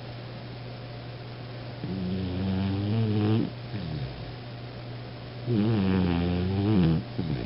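Beagle snoring in its sleep: two long snores about three seconds apart, each lasting about a second and a half, over a steady low hum.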